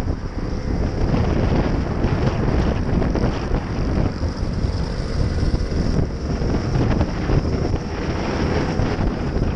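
Wind buffeting the microphone of a camera on a moving Gilera scooter, with the scooter's engine and tyre noise underneath at a steady cruising speed.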